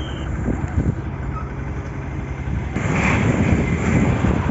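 Motor vehicle engine running while driving, with a steady low rumble; about three seconds in the noise grows louder and rougher.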